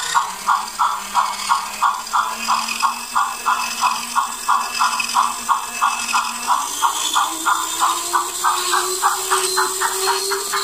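Steam-locomotive chuffing from a DIY model-train sound box, about three chuffs a second, quickening near the end as the DC controller is turned up. Under it a steady electric motor whine steps up in pitch partway through.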